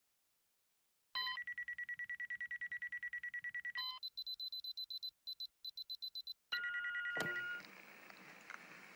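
Rapid electronic computer-terminal beeping, about eight short high beeps a second. About four seconds in the beeps jump to a higher pitch, then stutter and stop. A steadier two-tone beep follows, then a sharp click into a faint hiss of static.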